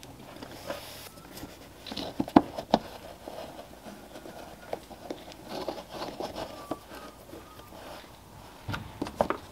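Hands handling a plastic fog light housing in a car bumper and a small Phillips screwdriver turning its retaining screw: soft rubbing and scraping with scattered sharp clicks, a couple about two and a half seconds in and a quick cluster near the end.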